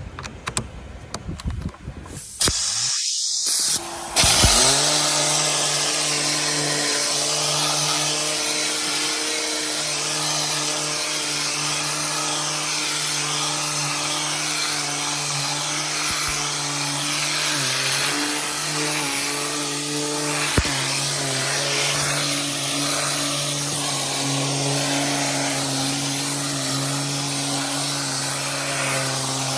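Vacuum cleaner running steadily: a loud rush of air over a constant motor hum. It comes on about four seconds in, after a few knocks and clicks of handling.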